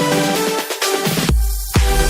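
Background electronic dance music with sustained synth notes; the kick drum and bass drop out, then come back in with a steady beat near the end.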